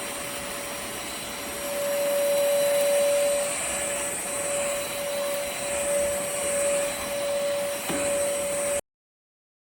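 VersLife S7 Plus cordless stick vacuum running, a steady motor whine over rushing air, getting louder about two seconds in and wavering as it works. The sound cuts off suddenly near the end.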